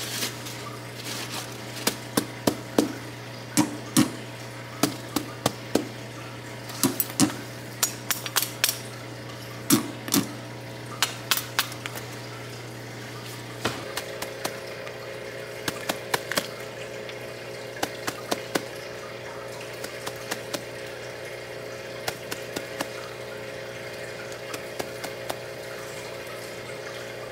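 Fingers tapping on the ground in irregular clusters of a few quick taps each, used to call an Asian water monitor lizard to come. Under the taps is a steady low hum that shifts in pitch about halfway through.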